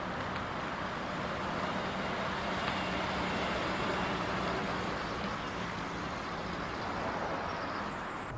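Light van's engine running and tyres rolling as it drives slowly past towing a small trailer. The sound is loudest about three to four seconds in as the van goes by close.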